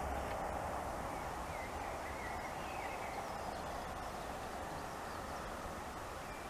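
Steady outdoor hiss with wind rumbling on the microphone, and a few short bird chirps in the first half.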